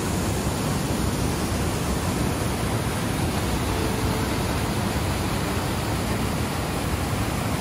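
Gunlock Falls' whitewater cascading down a narrow sandstone channel, a steady, loud rush of water.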